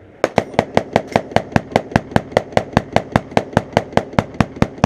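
Rapid gunfire: a long unbroken string of evenly paced shots, about six a second, starting a moment in.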